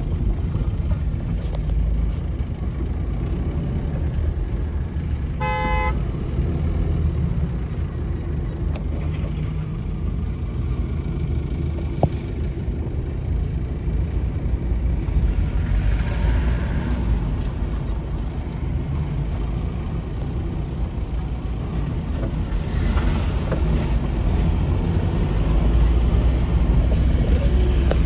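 A road vehicle driving, with a steady low rumble of engine and road noise. A vehicle horn gives one short honk about five and a half seconds in.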